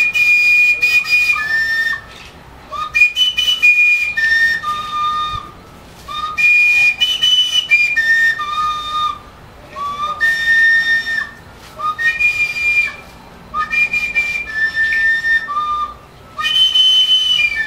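A small flute playing a short phrase of a few high, held notes, repeated about six times with short pauses between phrases.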